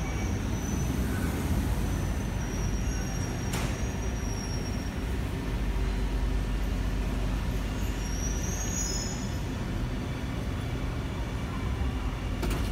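Alstom Metropolis C830 metro train pulling into the platform and slowing to a stop: a steady low rumble with faint high-pitched whines coming and going, and a single click about three and a half seconds in.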